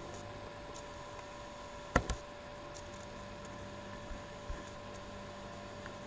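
Computer mouse clicking, a quick pair of sharp clicks about two seconds in and another at the very end, over a steady electrical hum.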